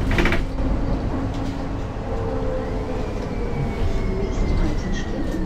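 MAN NL 273 Lion's City city bus with Voith automatic gearbox running, heard from on board, with a short hiss right at the start and a thin whine that falls slowly in pitch from about three seconds in.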